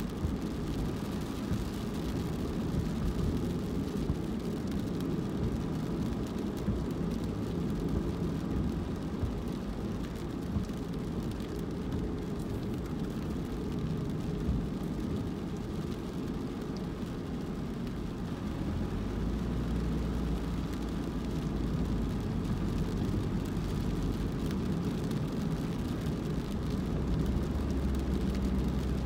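A car driving: steady engine and road rumble, with a deeper low hum coming in about two-thirds of the way through.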